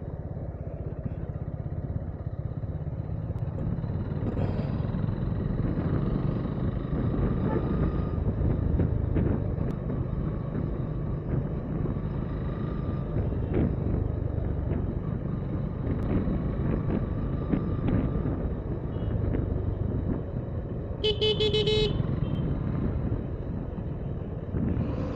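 A motorcycle riding slowly, its engine running steadily with road noise. A vehicle horn honks for about a second near the end.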